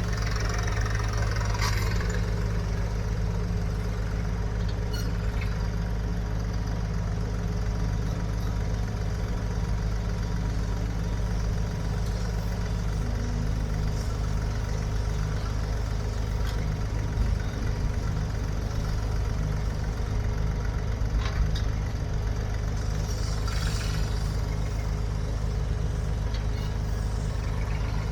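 The engine of a piece of farm or construction equipment idling steadily, with a slight change in its note about halfway through.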